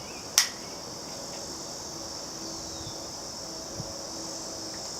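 Steady high-pitched chirring of insects in the background, with one sharp click about half a second in.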